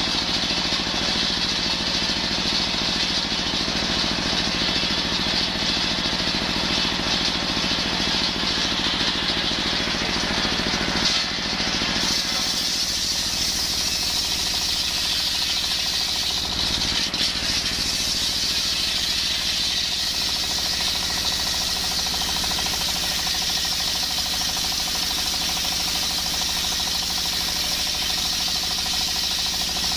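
Large belt-driven circular saw ripping a coconut log, powered by a stationary diesel engine running steadily. The high cutting noise of the blade in the wood grows louder and fuller about twelve seconds in and holds steady after.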